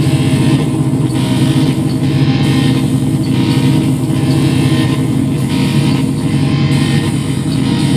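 Live electronic noise music from tabletop gear: a loud, dense, steady low drone under a hissing layer that swells and fades roughly once a second.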